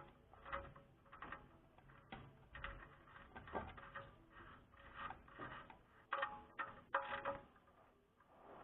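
Ratchet wrench clicking through short strokes as the sump plug is screwed back in: a faint, irregular run of short rasping clicks, roughly two a second.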